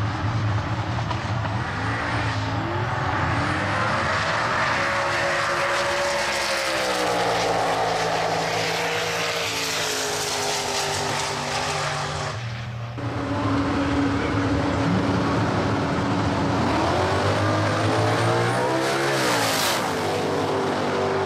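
Drag-racing Ford Cortina's engine running hard and revving up and down several times, with a short dip in the sound about halfway through.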